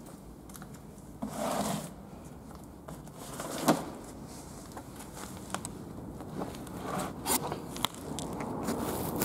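Scrapes, rubbing and scattered clicks from footsteps and handling on a floor strewn with papers and debris. One sharp knock stands out about three and a half seconds in.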